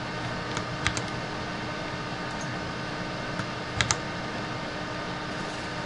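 A few computer keyboard keystrokes in two small clusters, about a second in and again about four seconds in, over a steady background hiss with a faint hum.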